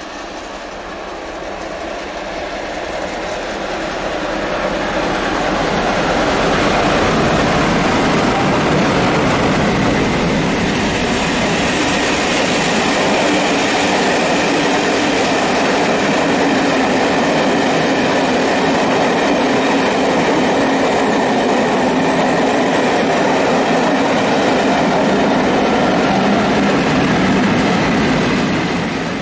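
Class 47 diesel-hauled passenger train passing close by on the main line: a steady rumble and clatter of coach wheels over the rails. It grows louder over the first several seconds, holds steady, and drops away at the very end.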